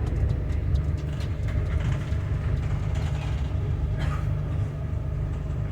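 Steady low rumble inside a passenger train carriage, with a few light clicks and rattles, mostly in the first second.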